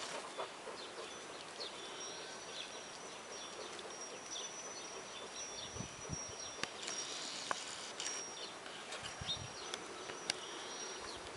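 Faint rural outdoor ambience: a thin, high insect buzz that comes and goes, with scattered short bird chirps, a few light clicks and a few low thumps.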